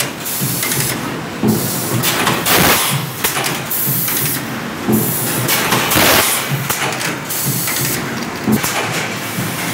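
Fully automatic four-cavity PET stretch blow moulding machine running: a steady mechanical clatter broken by repeated bursts of air from its pneumatic cylinders and valves, roughly one every second or so.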